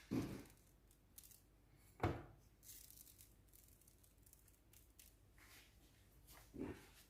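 Quiet kitchen handling sounds while decorating donuts: three short soft knocks, near the start, about two seconds in and near the end, with faint rustling and scraping between them.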